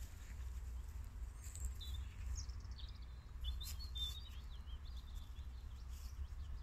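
Small birds chirping in short high calls, mostly from about a second and a half in to about five seconds in, over a steady low rumble.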